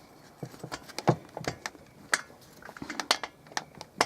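Irregular sharp clicks and taps of small metal parts as a spark plug and hand tools are handled.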